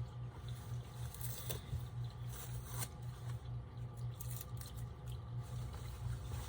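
Light rustling and a few scattered clicks from a fabric purse dust bag being handled, over a steady low hum.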